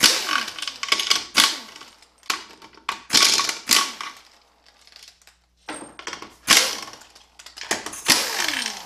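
Air impact wrench hammering out the case bolts of a 4T65-E transaxle in a series of short bursts, each burst falling in pitch as the tool winds down after the trigger is released.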